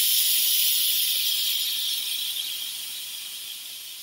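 Steam hissing out of an Instant Pot's release valve as its pressure is let out, a steady hiss that fades over the last couple of seconds.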